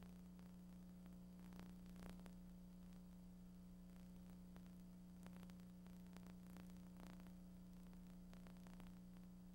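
Near silence: a faint steady hum with low hiss.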